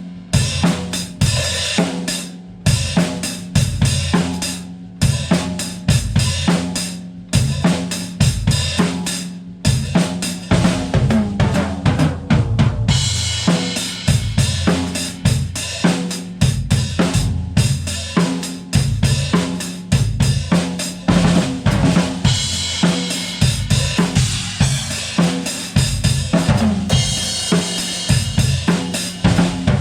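A Tama drum kit played in a steady groove: bass drum, a 14x6 Tama Starphonic Metal snare with an Evans head, and hi-hat. From about halfway through, a Meinl cymbal's wash rings over the beat.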